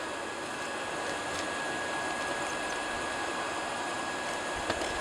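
Forge air blower running steadily while the iron is reheated: an even rush of air with a faint steady whine over it. There is one light click near the end.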